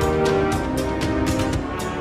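Dramatic background music: held notes over a steady percussion beat of about three or four hits a second.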